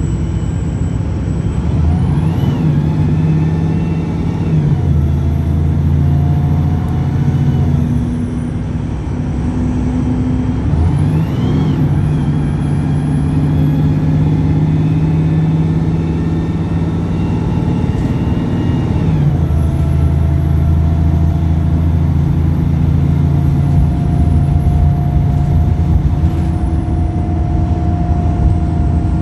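Wright Pulsar single-deck bus's diesel engine revving up, holding high revs, then dropping back, twice, with a thin high whine rising and falling along with it. It is typical of this bus's erratic high revving.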